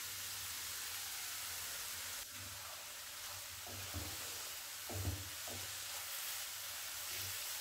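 Grated-carrot halwa sizzling in a nonstick wok on medium flame while a wooden spatula stirs it. Soft knocks of the spatula against the pan come a few times, the loudest about five seconds in.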